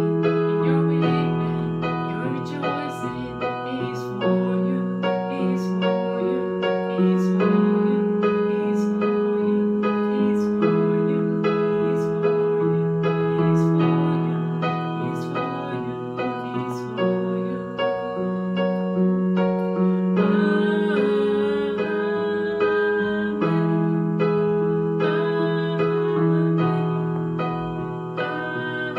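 Portable electronic keyboard played in a piano voice: slow, sustained chords with a slowly moving bass line, a gentle worship-song accompaniment.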